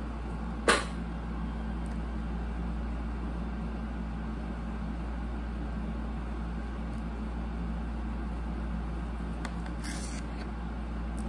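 Steady low hum of room tone, with a sharp tap about a second in. Near the end, a brief soft scrape as a kitchen knife slices through a tomato's skin and flesh.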